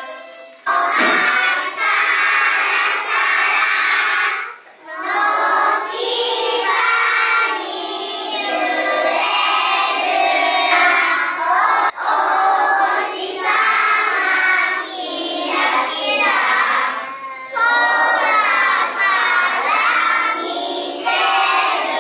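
A group of young children singing a song together in unison, in sung phrases with short breaks about four and a half seconds in and again around seventeen seconds.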